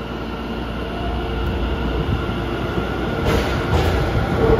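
Tokyo Metro 10000 series subway train pulling out of a station, a steady running rumble and hum that grows louder, with wheels clicking over rail joints a couple of times near the end.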